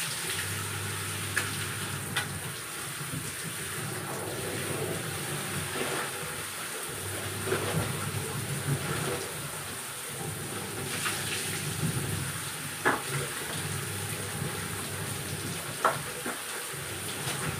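Clothes being washed by hand: wet fabric scrubbed and sloshed in water, with splashing and a few sharp knocks. A low hum comes and goes underneath.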